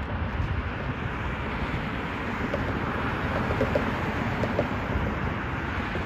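Road traffic passing by: a steady wash of car tyre and engine noise, with a few faint short chirps near the middle.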